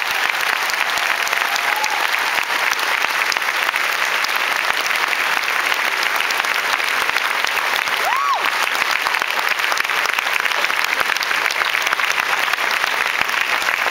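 A large crowd applauding steadily after being told to give themselves a hand. About eight seconds in there is one short whistle that rises and falls in pitch.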